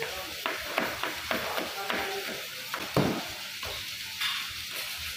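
A chef's knife chopping a green chilli on a plastic cutting board: a quick run of short knocks, about three a second, with a short pause near the end.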